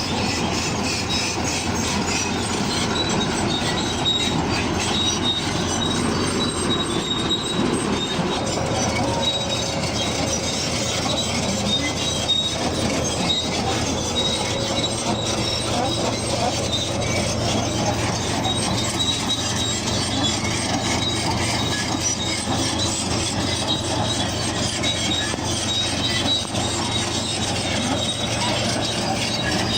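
Bulldozer working, its steel crawler tracks squealing and clanking over the running engine. The sound goes on steadily, with a thin high squeal throughout.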